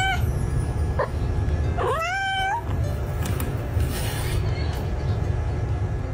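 Domestic cat meowing: one meow ends right at the start, a short call comes about a second in, and a meow that rises in pitch comes about two seconds in, all over a steady low rumble.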